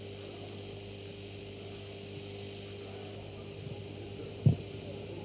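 Steady electrical mains hum with a high hiss. About four and a half seconds in, a single short dull thump sounds.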